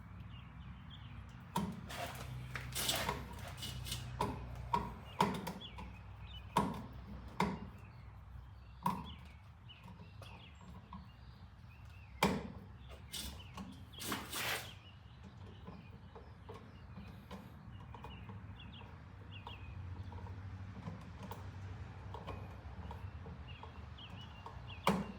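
Irregular clicks, taps and knocks of hands working on an electrical outlet and its wiring, busiest in the first fifteen seconds and sparser after. A steady low hum runs underneath.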